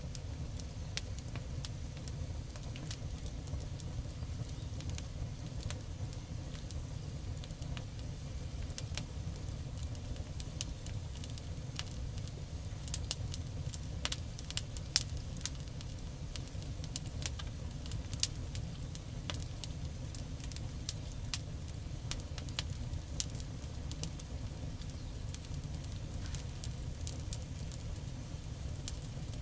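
Member's Mark four-burner gas griddle heating up: a steady low rush from the lit burners, with sharp ticks from the steel cooktop as it heats and expands. The ticks come more often from about a third of the way in.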